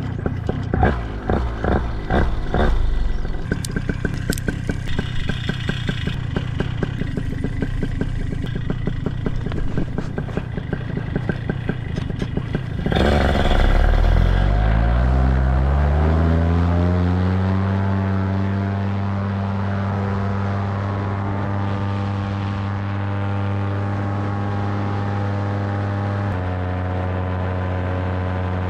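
Two-stroke paramotor engine, first running with a rough, pulsing beat; about halfway through it is throttled up, its pitch climbing for a few seconds before it settles into a steady drone at power, with a slight shift near the end.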